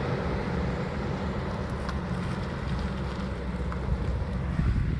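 Heavy trucks in a convoy driving past, a steady low engine rumble with tyre and road noise.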